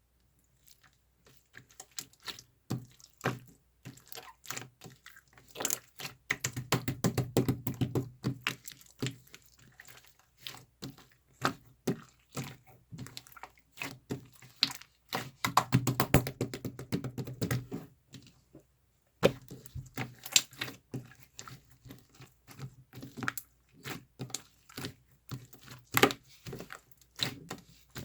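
Rapid, irregular clicking and tapping of small hard objects being handled, with two busier stretches where duller knocks join in and a brief pause about two-thirds of the way through.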